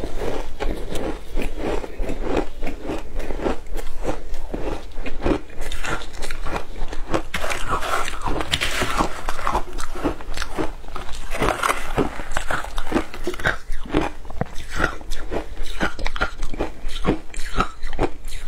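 Shaved ice dusted with matcha powder being bitten and chewed, a dense, continuous run of crisp icy crunches.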